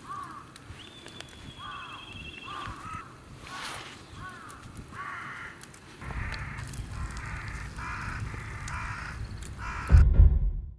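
Birds calling outdoors: a string of short, repeated arched calls, with a rumble underneath from about six seconds in. A brief loud burst comes near the end.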